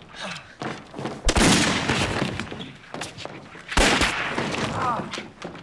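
Two loud gunshots about two and a half seconds apart, each followed by about a second of echo in a large hall.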